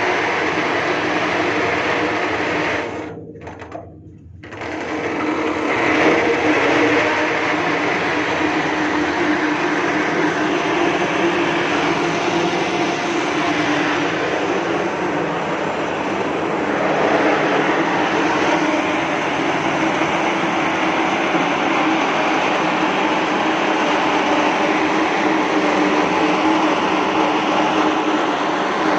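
Steady mechanical running noise, briefly muffled and quieter about three seconds in.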